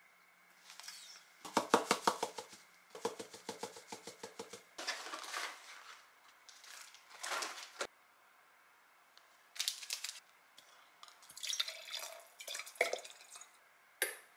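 Ketchup squeeze bottle sputtering in two runs of rapid squelchy pulses, each about a second long. After that come quieter rustles, liquid sounds and clinks at a glass as a drink is made and stirred with a muddler.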